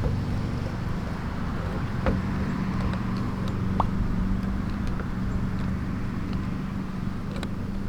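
Steady low mechanical hum, like an engine running, with a few light clicks and taps.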